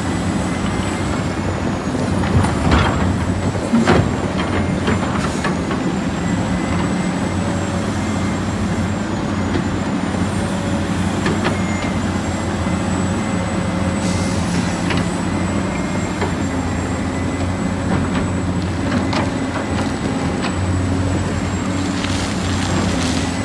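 Heavy diesel machinery running steadily under load, with a few sharp metallic clanks about three and four seconds in and a thin high whine over the engine.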